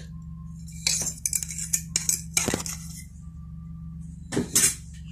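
Metal spoon clinking and tapping against mixing bowls as egg is added to flour: a quick run of clicks about a second in, then a couple of louder knocks near the end, over a steady low hum.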